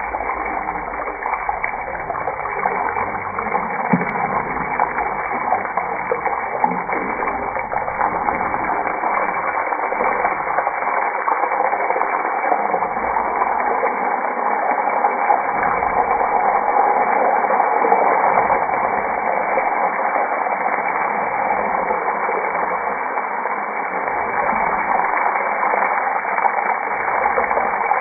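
Hard-boiled eggs frying in hot oil in a nonstick pan, a steady sizzling hiss, with a light knock about four seconds in.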